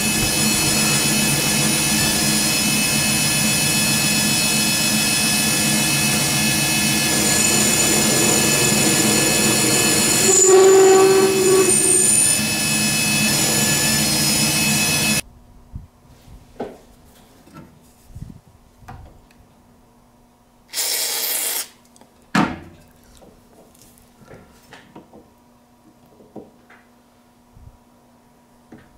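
Metal lathe turning a 6061 aluminum part with a carbide insert, a steady machining noise that swells briefly a little past a third of the way in. About halfway through it cuts off suddenly, leaving quiet metallic handling clicks, a short hiss and one sharp knock.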